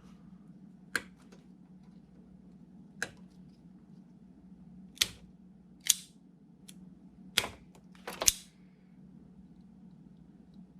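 A hand tool snapping shut on wiring: six or so sharp snips at irregular intervals, the last two close together near the end, as the burned connector on the washing machine's switch is cut out and redone. A faint steady hum runs underneath.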